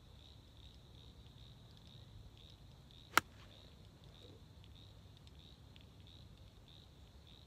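A single sharp click about three seconds in: a 52-degree wedge striking a golf ball on a full swing. Behind it, a faint high pulsing tone and low outdoor background noise.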